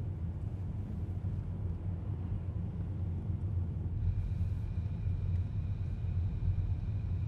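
Steady low rumble of a car driving, with a faint thin high tone joining about four seconds in.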